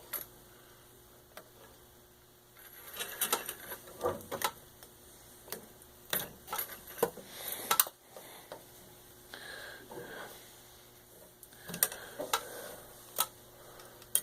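Antique Singer 9W treadle sewing machine stitching slowly through layers of denim: irregular mechanical clicks and clatter, in bunches with short pauses between them.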